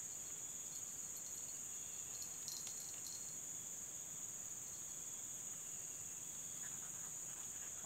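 Steady, high-pitched chorus of insects, with a few faint ticks about two and a half seconds in.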